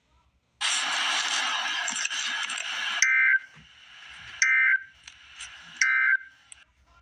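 A loud burst of static hiss lasting about two and a half seconds, then three short two-tone electronic data chirps about a second and a half apart. These are the Emergency Alert System's end-of-message code bursts that close the alert.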